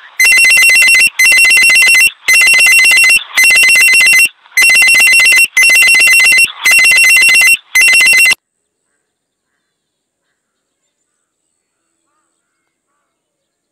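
Electronic ringing sound effect, in eight loud bursts of about a second each with short gaps between them. It cuts off suddenly about eight seconds in.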